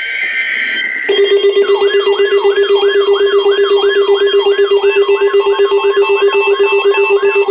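Weather radio alert signal for a required weekly test. It opens with the tail of the SAME data burst, a steady pair of high electronic tones. About a second in, alert tones start: a fast pulsing electronic buzz with a repeating warbling sweep over it, about three sweeps a second.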